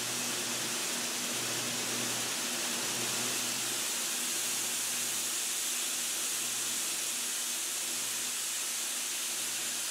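Steady rushing hiss of corn seed moving through processing machinery, with a faint low motor hum underneath.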